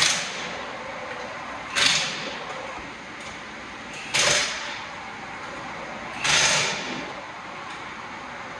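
Four short bursts of hissing air, roughly two seconds apart, each fading quickly, over steady background noise.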